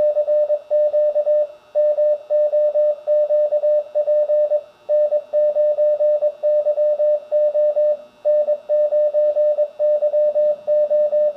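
Morse code CQ call at 22 words per minute, heard as the Icom IC-7300's CW sidetone. A single steady beep keys on and off in quick dots and dashes, calling CQ with the MOQP contest tag.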